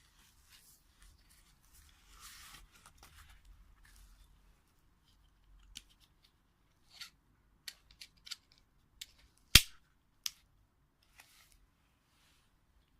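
Plastic side-release buckles and nylon webbing of a dog safety harness being handled: a soft rustle, then scattered light clicks, with one sharp loud snap about halfway through.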